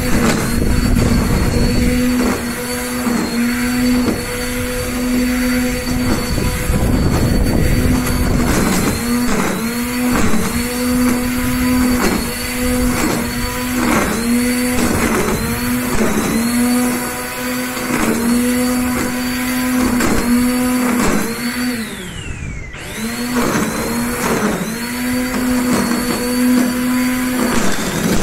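Black & Decker GrassHog 800 W corded electric string trimmer running at a steady whine, dipping in pitch about once a second as the spinning line loads up in the grass. About three-quarters of the way through it winds down, nearly stopping, then spins back up a second later.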